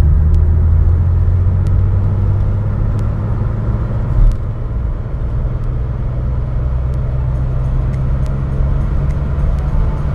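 1978 Porsche 911 SC's air-cooled flat-six running steadily at cruising speed, heard from inside the cabin with road and wind noise. A brief thump about four seconds in.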